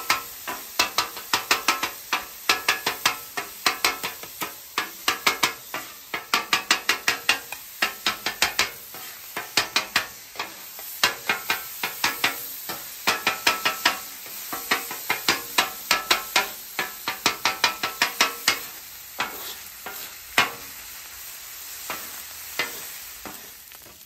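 Metal bench scraper chopping and scraping ground beef on a hot steel Blackstone griddle top: rapid sharp clacks, about two or three a second, over steady sizzling of the beef frying. The chopping thins out to a few strokes near the end, leaving the sizzle.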